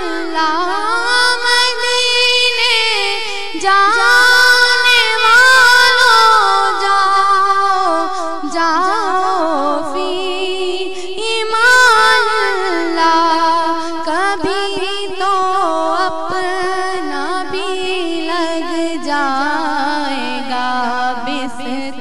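Urdu naat sung without clear words: a voice drawing out long, wavering, ornamented melismatic notes between verses of the refrain.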